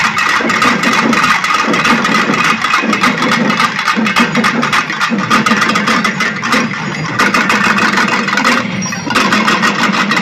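A large ensemble of pambai, Tamil folk paired drums struck with sticks, playing together in a fast, dense stream of strokes. The playing briefly thins about eight and a half seconds in, then comes back at full strength.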